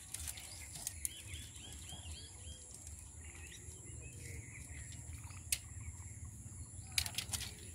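Birds chirping in short repeated calls, with a few sharp clicks and knocks from bamboo strips being handled and tied into a lattice, the loudest about a second in, midway and near the end.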